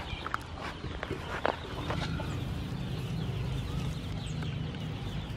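Chickens clucking, with a few short clucks in the first two seconds, over a steady low rumble.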